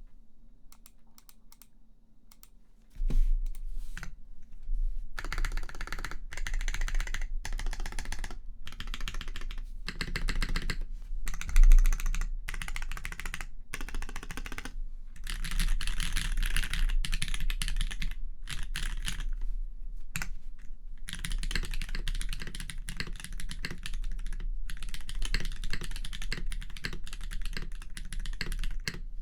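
Mechanisk Urskog mechanical keyboard with lubed Holy Panda tactile switches on a brass plate and GMK keycaps, being typed on. A few light clicks, then steady fast typing from about three seconds in, in runs with brief pauses.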